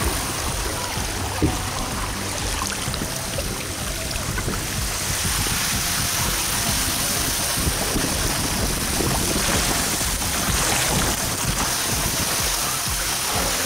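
Rushing water and a rider sliding down a water slide: a steady noisy rush with a heavy low rumble. It brightens and hisses more about five seconds in, as the slide enters an enclosed tube.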